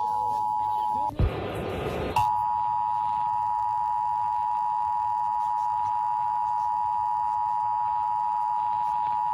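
Emergency Alert System attention signal: the steady two-tone alarm of 853 and 960 Hz sounding together, broken about a second in by a roughly one-second burst of harsh noise, then resuming unchanged.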